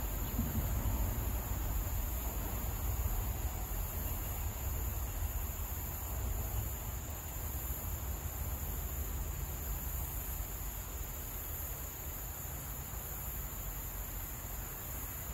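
Wind buffeting the microphone with an irregular low rumble, over a steady high-pitched drone of insects.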